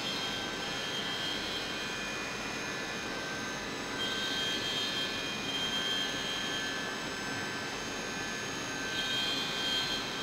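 CNC milling machine running: a steady mechanical whine with several constant high tones over a noisy hum, swelling louder twice, about four seconds in and near the end.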